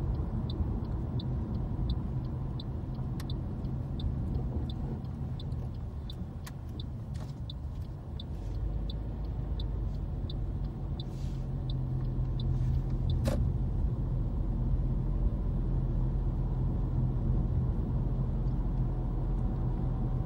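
Car turn indicator ticking steadily, about one and a half ticks a second, over low engine and road rumble inside the car's cabin. The ticking stops about halfway through, and the rumble then grows louder.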